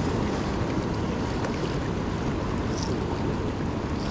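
Wind buffeting the microphone over a steady wash of choppy sea water around a small boat.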